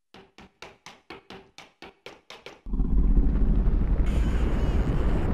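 Animation sound effects: a quick run of about eleven light taps, roughly four a second, then a loud low rumble that starts about two and a half seconds in.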